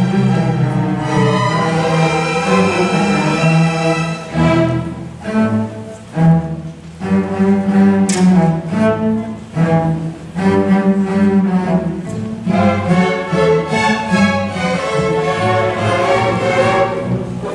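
High school string orchestra playing live: bowed strings with a strong low register, sustained chords that turn to short, separated notes about four seconds in, then sustained again. A single sharp click about eight seconds in.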